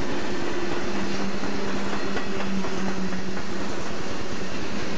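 Freight train cars rolling past close by: steady noise of steel wheels on rail with faint clicks at the rail joints, and a low steady tone held from about a second in.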